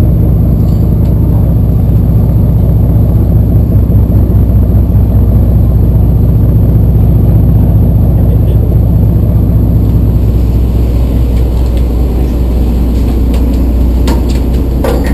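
Party boat's engine running steadily: a loud, constant low rumble with a steady hum.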